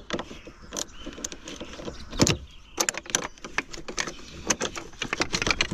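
A quick, irregular run of clicks, knocks and small rattles, denser in the second half, as of things being handled.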